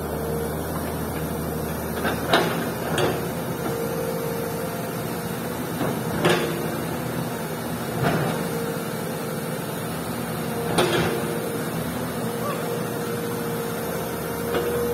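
Komatsu PC200 hydraulic excavator's diesel engine running steadily, with a whine that comes and goes and several sharp metallic clanks at irregular intervals as the machine moves.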